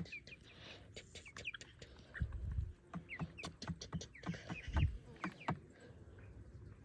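A sleeping person snoring: two short, low snores about two and a half seconds apart, with scattered small clicks and rustles between them.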